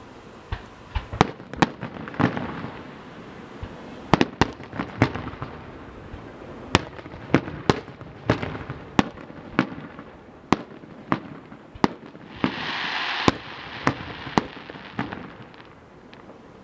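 Fireworks display: aerial shells bursting in a quick, irregular string of sharp bangs. A short stretch of hissing noise comes about three quarters of the way through.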